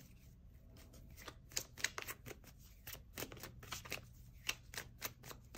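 Tarot deck being shuffled by hand: a quiet, irregular run of card flicks and taps.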